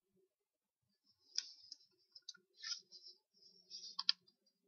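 Small clicks and short scratching noises as the enclosure of an external hard disk is worked open by hand, with two sharper clicks about four seconds in.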